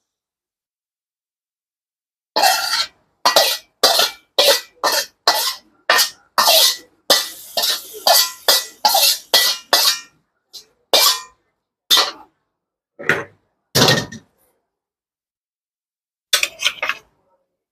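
Metal spatula scraping food out of a wok onto a plate. It starts a couple of seconds in as a run of quick scrapes, about two a second, thins to a few single strokes, and after a pause ends in a brief flurry of scrapes near the end.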